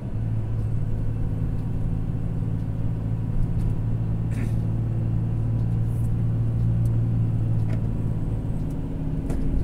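Volvo FH truck's diesel engine running with a steady low drone on a long mountain descent, heard from inside the cab.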